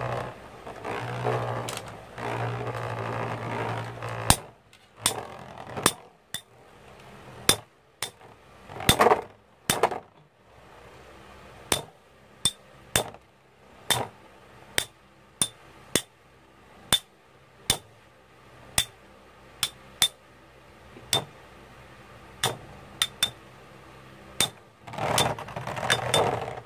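Two Infinity Nado metal spinning tops battling in a plastic stadium. A steady whirring hum runs for the first few seconds, then comes a long run of sharp clinks, about one a second or faster, as the tops strike each other. Louder grinding scrapes come around nine seconds in and again near the end.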